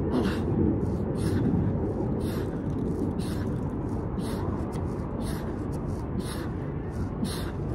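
A man breathing out hard in short, hissy puffs about once a second, one with each crunch, over a steady low rumble.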